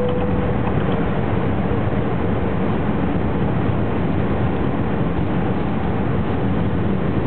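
Cabin noise of an Airbus A380 climbing out after takeoff: the steady, loud, low rush of its four jet engines and airflow heard from a passenger seat. A single clear tone sounds at the start and fades away over the first second or so.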